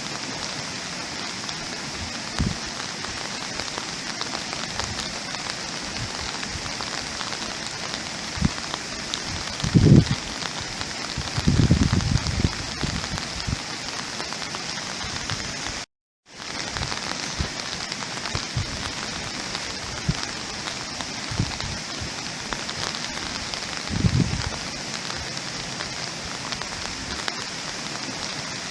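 Steady rain falling on a surface: an even hiss of raindrops, with a few louder dull thuds of heavier drops. It drops out to silence for a moment about halfway through.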